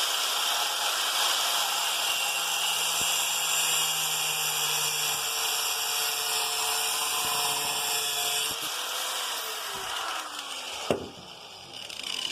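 Angle grinder grinding a steel Allen key down to bare metal, a steady dense grinding noise. About nine seconds in it is switched off and its whine falls as the disc spins down, followed by a single sharp knock near the end.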